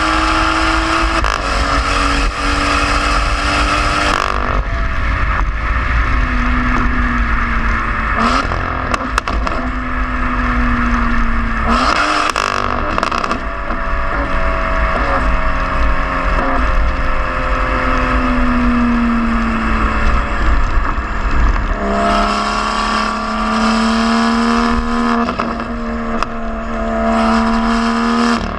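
BMW M2 F87's turbocharged 3.0-litre inline-six N55 engine running through a stainless valved aftermarket exhaust with a catless downpipe while driving. The exhaust note drifts in pitch, dropping in two steps in the first few seconds, then climbs again from about three-quarters of the way through. Short rushes of noise come about 8 and 12 seconds in.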